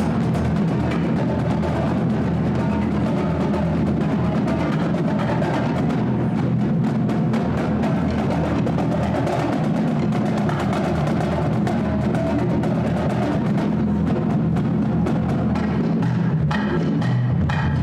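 Percussion music, drums playing a dense run of rapid strokes over steady low tones, with sharper, brighter strokes coming in near the end.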